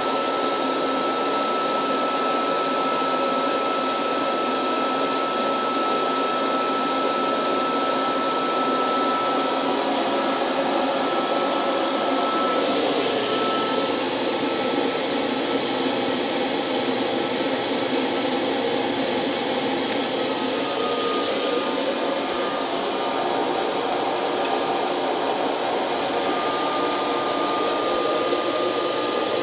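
Home-built fluid bed coffee roaster running, its hot-air blower making a steady rushing noise with a faint whine as it tumbles the beans. The roast is between first and second crack, and no cracks stand out.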